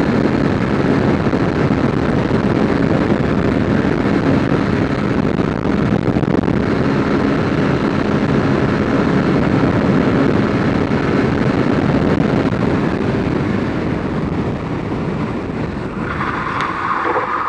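Motorcycle at highway speed, about 100 km/h: steady wind rush over the microphone with the engine running underneath. It eases off near the end as the bike slows, and a higher tone comes in over the last second.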